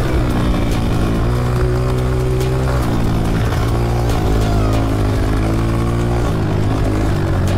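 Honda CRF125F's single-cylinder four-stroke engine running hard as the dirt bike rides down a straight, its pitch holding fairly steady and stepping up or down a few times.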